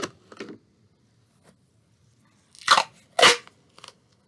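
Duct tape and a plastic soda bottle being handled: a short crackle at the start, then two louder short crinkling crackles about half a second apart near the end.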